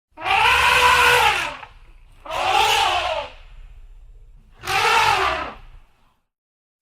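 Custom creature sound effect for the Gum-Beast Elephant: three loud, separate calls over a low rumble. Each call lasts about a second and rises then falls in pitch.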